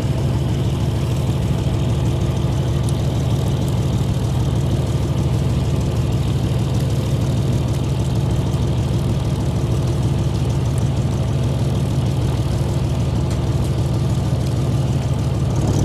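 Fishing boat's engine running steadily, a deep, even hum.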